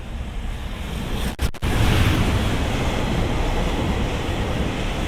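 Freight train hauled by a JR Freight EF210 electric locomotive passing through a station, its rumbling running noise building up. The sound breaks off briefly about a second and a half in, then stays loud and steady.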